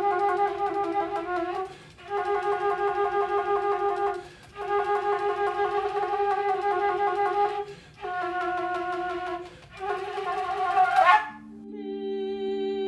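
Flute playing long held notes in short phrases with brief breaths between them, the last phrase ending in a quick upward flourish. About eleven seconds in, a lower, steady hum of several held tones takes over.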